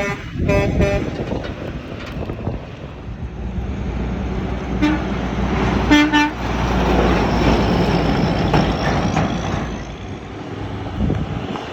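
Truck horns sounding in short blasts near the start and again about six seconds in, over the steady noise and rumble of passing road traffic.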